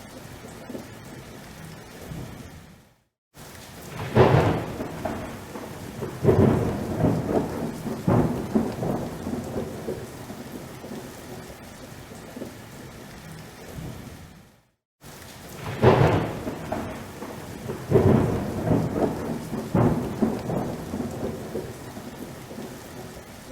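Steady rain in a thunderstorm with two long rolls of thunder, each a series of loud rumbling peals over several seconds. The sound cuts out completely for a fraction of a second just before each roll.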